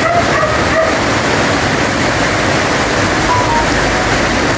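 Heavy rain pouring steadily, a dense even hiss.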